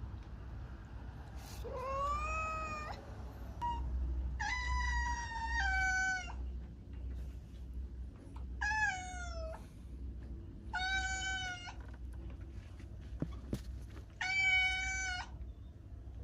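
A cat meowing repeatedly: about five or six drawn-out meows, each around a second long, with a rising then falling pitch, over a steady low hum.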